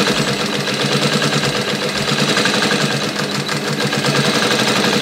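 Clutch-motor industrial sewing machine stitching a line at a slow, steady speed under light pedal pressure: a fast, even clatter of the needle and feed over the steady hum of the motor.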